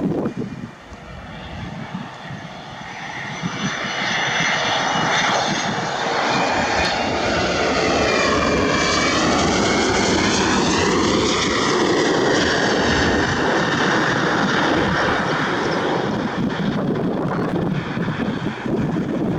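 Jet airliner on landing approach passing low overhead. Its engine noise builds over the first few seconds, carries a high whine that falls in pitch as it goes by, then stays loud.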